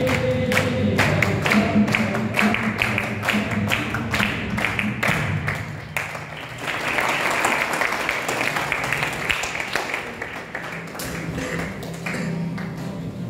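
A group song with sharp beats kept in time, then applause from about halfway through that dies down over a few seconds, with the music picking up again near the end.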